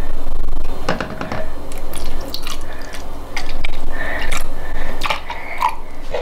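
Juice pouring from a carton into a plastic sippy cup, with irregular splashing and gulping from the carton's spout.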